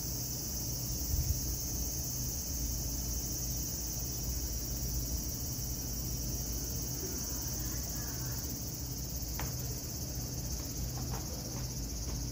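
Cicadas droning steadily in a high, unbroken hiss, over a low steady hum, with a few faint ticks near the end.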